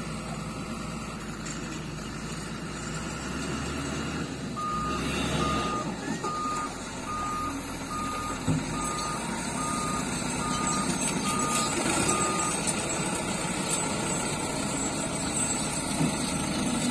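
Diesel engines of a Doosan 140 wheeled excavator and farm tractors running steadily, with a heavy machine's reversing alarm beeping about ten times, a little over once a second, from about five seconds in until about twelve seconds in. A single thump sounds midway.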